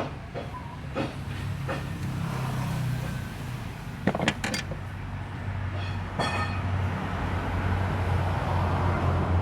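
Nissan YD25DDTi four-cylinder diesel engine idling with a steady low hum while its cooling system is bled of air, the hum growing somewhat louder in the second half. Several sharp clicks and knocks come over it, a quick cluster about four seconds in and a ringing metallic clink about six seconds in.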